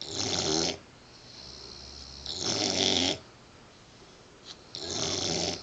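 Mastiff–Pit Bull mix puppy snoring in her sleep, a deep, man-like snore. Three long snores come about two and a half seconds apart.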